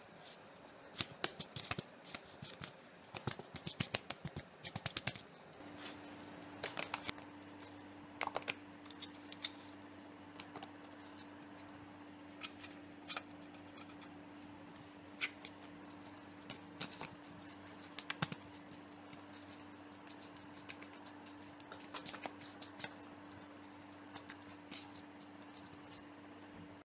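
Cloth being handled while raw potato and papaya slices are wiped dry, giving irregular sharp clicks, scrapes and rustles. From about six seconds in, a steady low hum runs underneath.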